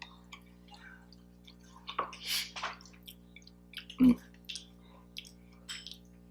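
Wet chewing and mouth sounds from eating, a few short smacks, the loudest about four seconds in.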